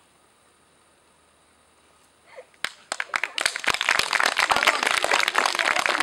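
A group of people clapping: after about two seconds of near silence, scattered claps begin and quickly build into steady applause.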